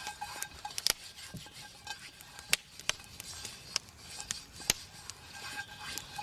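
A hand rubbing oil around the inside of a cast-iron camp oven to season it so nothing sticks, a soft smearing with scattered sharp clicks and ticks.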